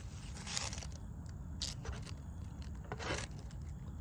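A few brief scrapes or rustles, about three, over a steady low rumble.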